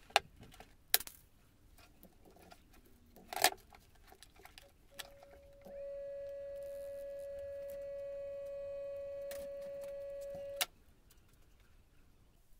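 Several sharp handling clicks, then a single-phase electric motor wired with a capacitor runs with a steady high whine for about five seconds and cuts off suddenly with a click.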